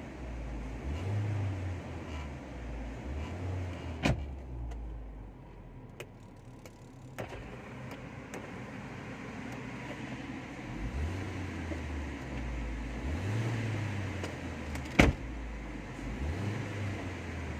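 Car engine revved in a series of short blips, each rising and falling in pitch, with a quieter pause after a sharp knock about four seconds in and another loud knock near the end.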